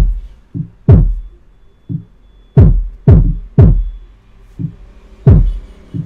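Taga Harmony powered subwoofer playing bass-heavy electronic music as a sound test of its repaired amplifier: deep drum hits that each drop steeply in pitch, about nine of them at uneven spacing, six loud.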